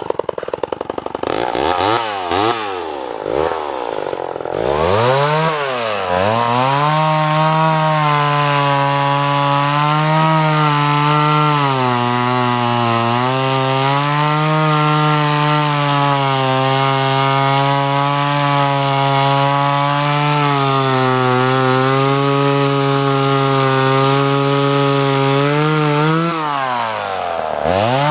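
Vintage Homelite XL Automatic two-stroke chainsaw catching and firing, blipped up and down a few times, then held at high speed for a long stretch, likely cutting wood, with its pitch sagging now and then under load. Near the end it drops back toward idle and revs up again.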